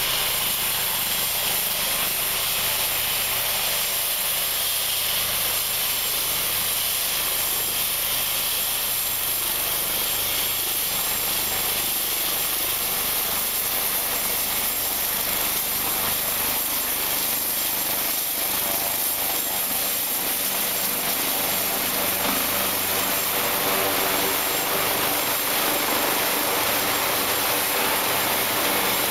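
AgustaWestland AW139 twin-turbine helicopter taxiing with its rotors turning: a steady high turbine whine over the rotor noise. It grows a little louder near the end as the helicopter draws close.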